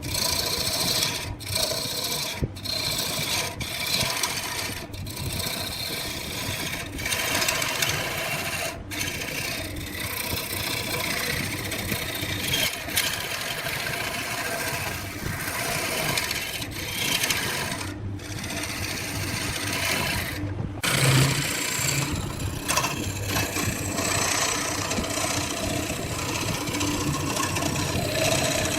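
Wood lathe running while a tool works the spinning wood, a continuous scraping noise broken by several brief dropouts.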